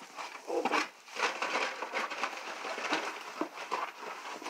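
Irregular rustling, crinkling and light knocks of blister-packed toy diecast cars being handled and picked out of a box.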